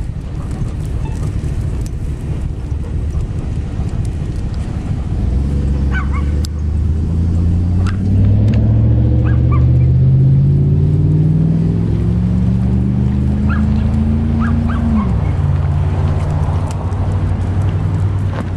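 A road vehicle's engine pulling away, its pitch rising steadily for about nine seconds and then dropping sharply, as at a gear change, over a steady low traffic rumble.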